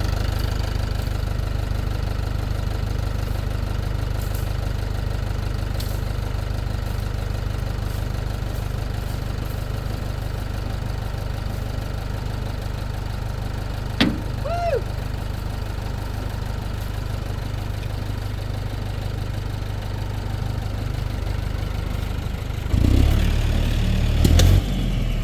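Tractor engine idling steadily. A brief squeak comes about two-thirds of the way through. Near the end the engine gets louder for a couple of seconds, as if taking load or revving up.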